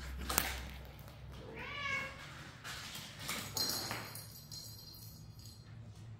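A Bengal cat meows once, a short call that rises then falls, about two seconds in. A sharp tap comes just before it.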